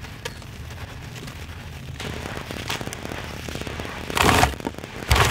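A wet, gritty chunk crumbled and crushed by hand over a tub of muddy water, crackling steadily. Two louder bursts of crunching come near the end as pieces break away.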